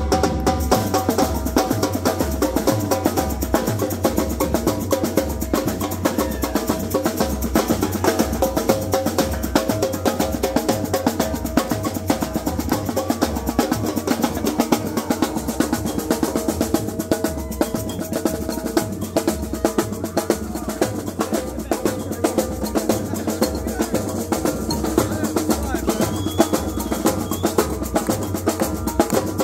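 A marching drumline playing a fast, dense groove of rapid drum strokes over a steady, repeating low pulse.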